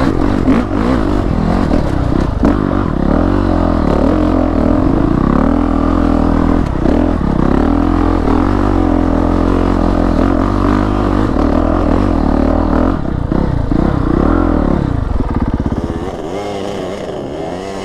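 Honda CRF450RX single-cylinder four-stroke dirt bike engine pulling up a rocky hill, heard from the rider's helmet camera, its pitch rising and falling with the throttle. Near the end it eases off to a quieter, lower note as the bike slows.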